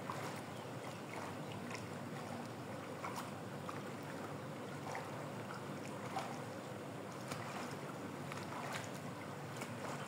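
Steady outdoor background noise, an even hiss with no calls from the bird, broken by a few faint short clicks.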